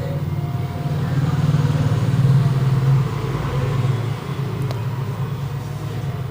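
Low, steady rumble of a running engine. It swells to its loudest about two to three seconds in, then eases off.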